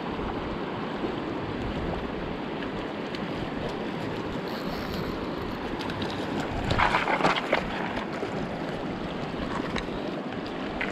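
Shallow, rocky mountain river running through a riffle: a steady rush of water, briefly louder about two thirds of the way through.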